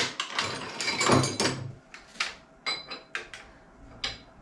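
Metal lathe tooling and hand tools clanking and knocking as parts are worked loose and handled: a dense run of clanks in the first second and a half, then scattered single knocks, one of them ringing briefly.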